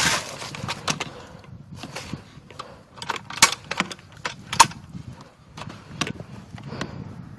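Footsteps moving through dry leaf litter and brush, with scattered sharp snaps and clicks at irregular intervals.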